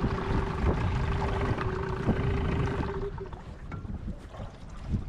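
Wind buffeting the microphone, over a steady whine that cuts off about three seconds in.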